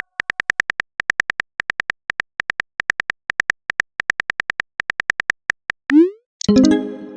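TextingStory chat-app sound effects: quick keyboard typing clicks, about five a second. Near the end comes a short rising bloop, then a ringing message chime that fades out.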